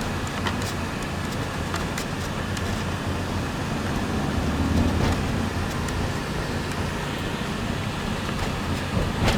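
Steady rumble of a motor vehicle on the road, with a few light clicks and knocks.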